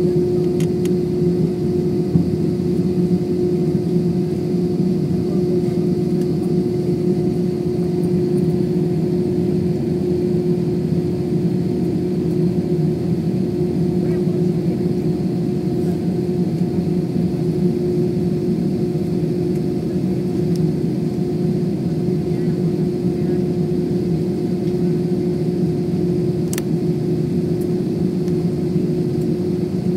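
Steady engine drone and cabin hum heard inside a jet airliner's passenger cabin while it taxis, with one even, constant hum over the noise. A single sharp click near the end.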